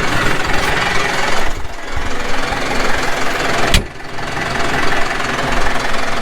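Tractor engine running steadily under load with a dense, rattling mechanical noise, as heard while pulling a tillage implement across the field. A sharp click comes a little under four seconds in.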